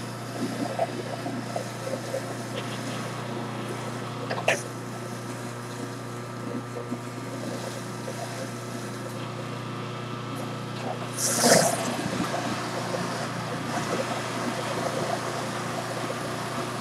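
Electric juicer motor running steadily with a low hum as juice pulp is pushed through it a second time to squeeze out the remaining juice. A short louder noise breaks in about eleven seconds in.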